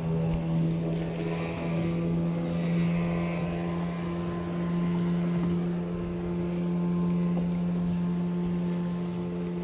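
A steady motor hum holding one low pitch throughout, without revving or change.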